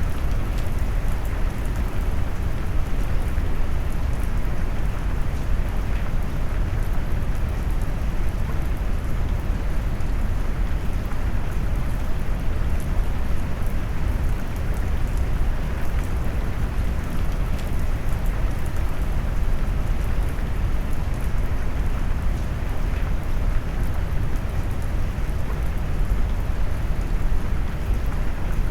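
Steady rain mixed with brown noise: a deep, even rumble with faint raindrop ticks scattered over it.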